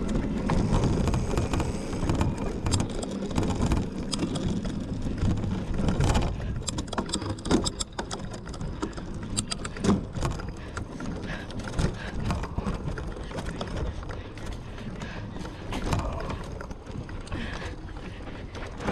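Mountain bike ridden over rough ground: a steady rumble of tyres and frame, with frequent rattling clicks and knocks from the bike.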